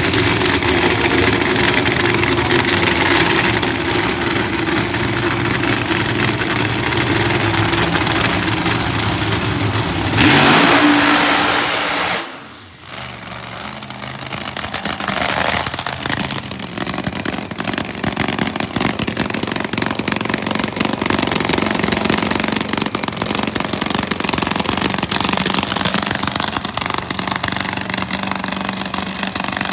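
Supercharged drag-racing funny car engine running loud and steady, revved up hard about ten seconds in, then dropping off suddenly about two seconds later before settling back into a steady idle.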